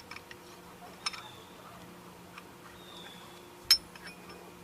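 Light metal clinks as a C-clamp and old brake pad are taken back out of a rear disc brake caliper after the piston has been pressed in: a small click about a second in and a sharper one near the end. A faint steady low hum runs underneath.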